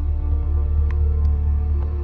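Ambient background music with a deep bass drone and held steady tones.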